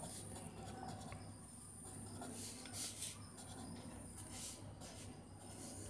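Faint scratching of a pen writing on paper: short, irregular strokes as words are written out.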